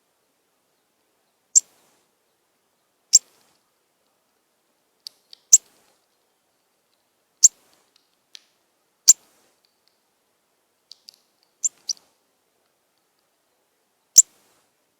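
Northern cardinal giving sharp, high chip calls, a single chip every second or two, with a few fainter ones in between.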